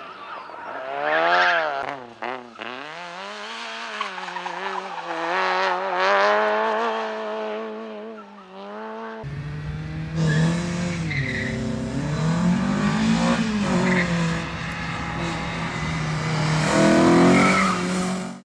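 Slalom car's engine revving hard and dropping off again and again as it is driven through the cones, with tyre squeal. About nine seconds in the sound cuts abruptly to another stretch of engine revving up and down, loudest near the end.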